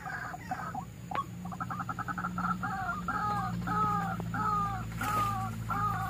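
White-breasted waterhen (ruak-ruak) call used as a lure: a quick stutter of notes about a second and a half in, then a steady series of two-toned calls, about two a second, over a steady low hum.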